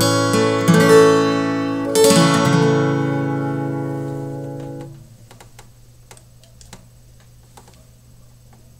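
Daniel Caceres 00-size acoustic guitar with a capo: a few finger-picked notes, then a final chord struck about two seconds in and left to ring, fading until it is cut off sharply at about five seconds. A few faint clicks follow.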